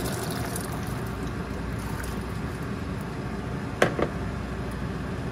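Soaked chickpeas tipped from a bowl into water in an aluminium pressure cooker, pattering in over the first second, then a steady background hum and a sharp knock a little before four seconds in.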